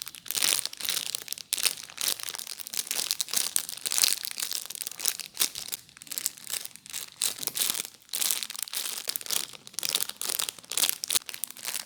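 Plastic packaging crinkling and crackling as it is handled, in quick irregular bursts of crackle with short pauses between.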